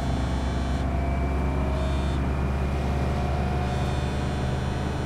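A motor vehicle's engine running at a steady low hum, with a high hiss that comes and goes three times.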